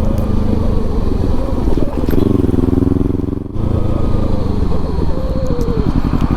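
Kawasaki Ninja 300's parallel-twin engine with an aftermarket exhaust, running under way while being ridden. There is a brief dip in the sound about three and a half seconds in, then it pulls steadily again.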